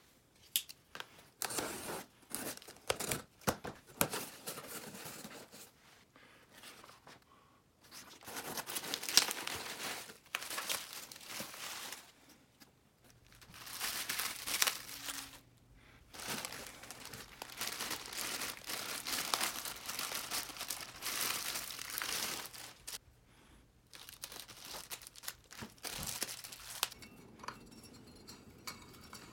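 Cardboard box being unpacked: a box cutter slits the packing tape and the flaps are pulled open with sharp clicks and scrapes, then long stretches of clear plastic packing wrap crinkling as the parts are unwrapped. Near the end, quieter light clicks of metal lamp parts being fitted together.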